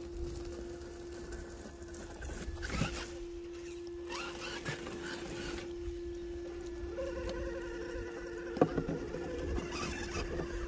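Brushless motor of a Redcat Gen8 RC crawler on a Hobbywing XeRun AXE system giving a steady whine as the truck crawls, with a second, higher tone joining about seven seconds in. Short bursts of rustling and scrabbling from the truck working over dirt and weeds.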